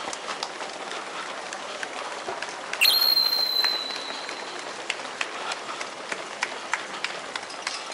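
Many marathon runners' footsteps pattering on asphalt as a steady run of light ticks over street noise. About three seconds in, a high whistle-like tone sounds for about a second, falling slightly.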